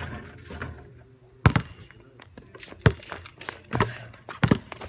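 Basketball bouncing on a hard outdoor court: a handful of sharp thuds at uneven intervals, the first about a second and a half in and two in quick succession near the end.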